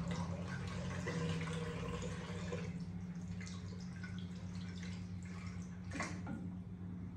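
Water running from a tap, which dies away after about two and a half seconds into scattered drips and small splashes as hands are rinsed, with one sharp knock about six seconds in.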